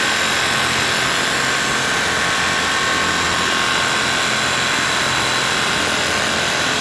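Pneumatic air hammer running steadily against a bolt welded onto a broken exhaust manifold bolt, jarring the seized stud loose.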